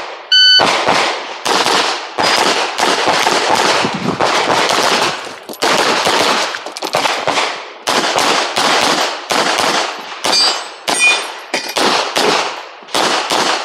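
A shot-timer start beep, then a pistol fired in rapid strings of shots for about thirteen seconds, with short pauses between strings, during a practical shooting stage.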